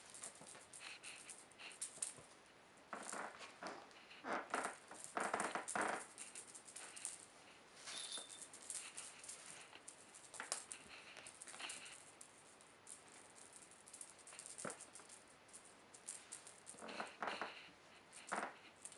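Maine Coon kittens scuffling and scrabbling on a cloth-covered floor as they pounce on a feather teaser toy, with the feathers rustling. Irregular bursts come in a cluster a few seconds in and again near the end.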